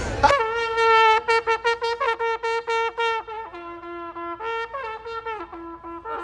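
Brass band with trumpets playing a tune: short quick notes over a held lower note, which begins switching between two pitches about halfway through.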